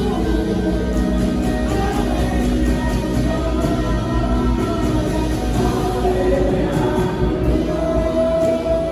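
A choir singing gospel music over instrumental backing, with long held notes over a steady low bass.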